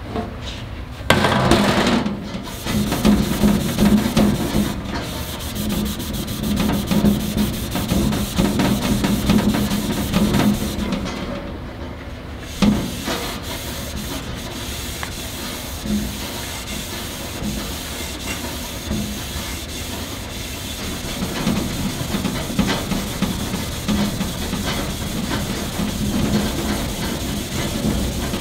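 Red Scotch-Brite abrasive pad scrubbing a stainless steel grill lid in rapid back-and-forth strokes, brightening the steel with a grain finish. A louder burst comes about a second in, and there is a sharp knock near the middle.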